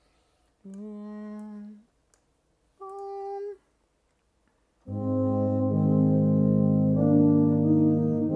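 Sampled brass from notation-software playback: two single held notes, one after another, then about five seconds in a full brass chord from trombones and tuba that holds and moves to a new chord about two seconds later.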